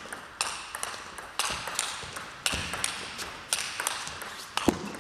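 Table tennis rally: the celluloid ball clicks sharply as it bounces on the table and is struck by the rubber-faced bats. A bounce and a stroke come in quick pairs about once a second.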